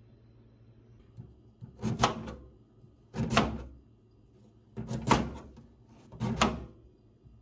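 Kitchen knife slicing through a peeled sweet potato onto a plastic cutting board: four separate cuts, each a short chop, a little over a second apart.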